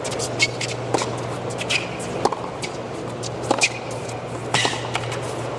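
A tennis rally on a hard court: sharp racket-on-ball hits and ball bounces about every second, with short sneaker squeaks on the court surface, over a steady low hum.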